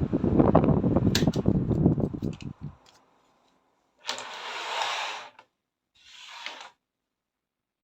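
A strong blast of air on the microphone while domino blocks clatter as they topple. The air cuts off about two and a half seconds in, followed by two shorter blasts with no clatter.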